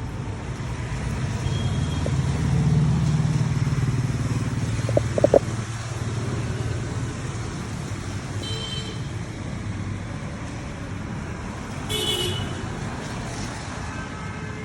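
Road vehicle running with a steady low rumble, loudest a couple of seconds in, with a few short sharp sounds about five seconds in and brief high-pitched chirps near the middle and near the end.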